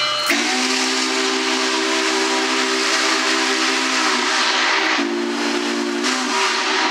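Union Pacific 844, a 4-8-4 steam locomotive, blowing its steam whistle, several notes sounding at once: one long blast, then a shorter one about five seconds in, over a steady hiss of steam.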